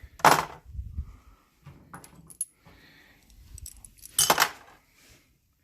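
Removed motorcycle electrical parts (voltage regulator, wiring and metal bus bars) clinking and clattering as they are gathered up and set down to be weighed. There is a loud clatter just after the start and another about four seconds in, with lighter clinks in between.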